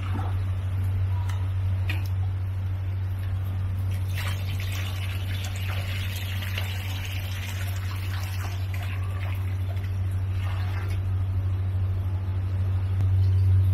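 Water sloshing and bubbling in a koi spawning pond, swelling for a few seconds about four seconds in and again briefly near the end, over a steady low hum.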